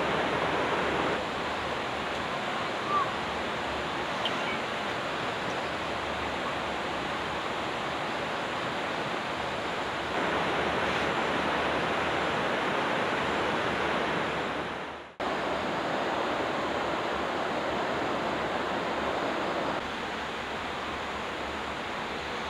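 Steady rushing of water, an even hiss with no distinct events. It steps up and down in level a few times and fades out and breaks off briefly about two-thirds of the way through before coming straight back.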